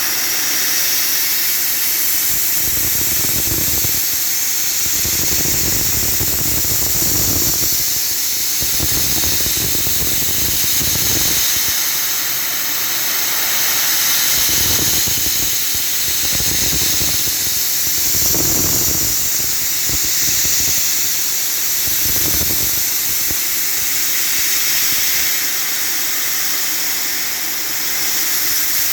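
Milling machine cutting metal on a V-block: a steady high hiss with a squeal, under a lower rumble that swells and fades every few seconds as the cutter works.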